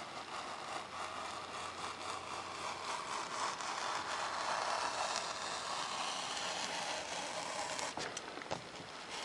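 Craft knife blade drawn through a sheet of 3 mm Depron foam, a scratchy scraping that swells toward the middle, with a couple of sharp clicks near the end.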